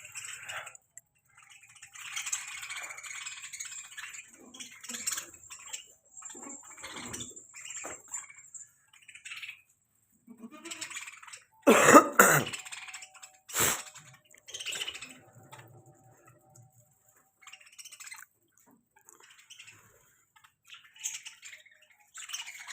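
Budgerigars chattering and chirping in short bursts with pauses between. About halfway through comes a loud, sudden harsh sound, followed a moment later by a sharp click.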